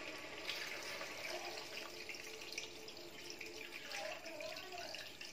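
Water poured steadily from a steel bowl into a wide kadhai of chicken curry, splashing into the thick gravy.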